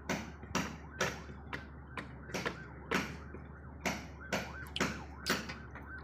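Footsteps crunching through dry grass at a steady walking pace, about two steps a second.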